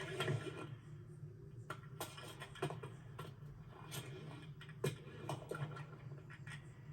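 Film sound effects: scattered light clicks and scratchy rustles over a steady low hum, with a few sharper clicks standing out.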